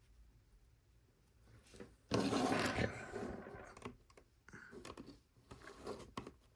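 Plastic LEGO pieces being handled and fitted: scattered small clicks and taps, with a louder stretch of rustling and scraping about two seconds in.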